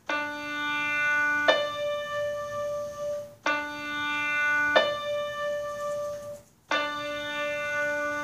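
Piano playing a perfect octave from D to the D above: low note then high note, twice, then the two notes struck together.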